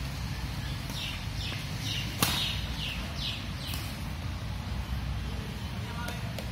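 Badminton racket striking the shuttlecock with one sharp crack about two seconds in, and a fainter tap near the end. A run of short, high, falling chirps repeats about twice a second over a steady low background hum.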